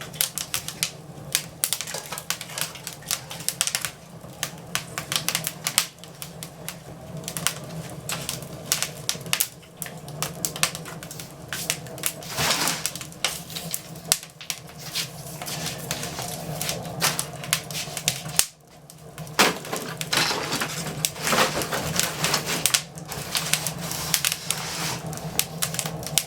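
Wood fire in a fireplace crackling, the burning fruit-crate kindling giving off rapid, irregular sharp snaps and pops, over a steady low hum.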